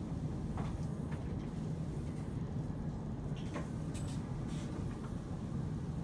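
Steady low background rumble with a few faint, short clicks, the clearest about four seconds in.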